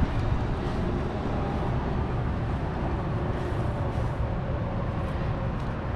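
Steady low outdoor rumble like traffic, with faint scrapes of a paintbrush spreading silicone roof coating over the roof membrane.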